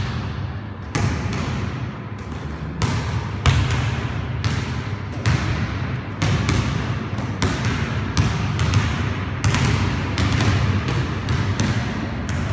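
Basketballs bouncing on a hard gym floor as several players dribble, sharp thuds about two a second at uneven spacing, each echoing in a large hall.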